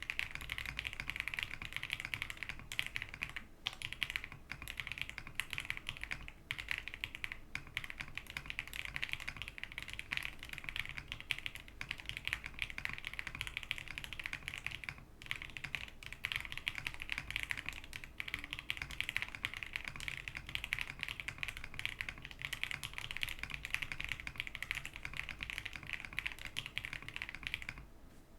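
Fast continuous typing on a QK65 mechanical keyboard with stock Wuque Aurora Pink switches and plate foam, a steady stream of keystroke clacks with a few brief pauses, stopping just before the end.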